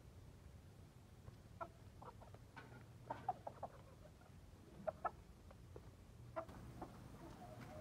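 Aseel chickens clucking quietly: short, scattered clucks, with a quick run of several about three seconds in.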